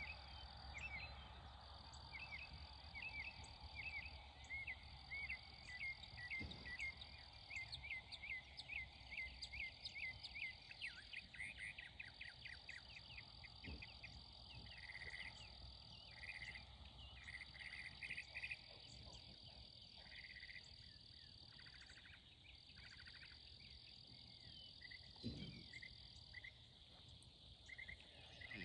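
Faint pasture ambience: insects making a high steady buzz in long stretches, with many quick chirping calls repeated throughout. A few soft low thumps come through, the clearest near the end.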